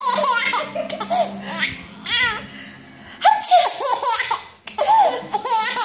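A baby laughing in several bouts of high giggles, each bout a run of short rising-and-falling laughs with brief breaks between.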